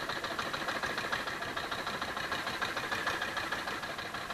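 Small outrigger fishing boat's engine running steadily, a fast even chug.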